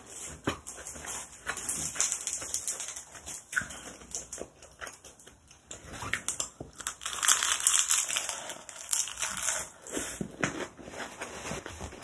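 Close-up eating sounds of kimchi bibimbap wrapped in roasted seaweed: wet mouth clicks and chewing throughout, with a louder stretch of crunchy, crinkly chewing from about seven to nine and a half seconds in.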